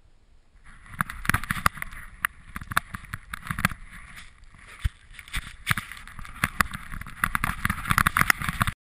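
A GoPro strapped to a running dog's chest picking up its own jostling: rustling of fur and harness against the camera housing with many irregular knocks. It starts about a second in and cuts off abruptly near the end.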